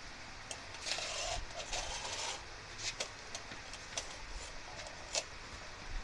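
Handling noise: a scraping rustle lasting about a second and a half, then a few separate sharp clicks and taps.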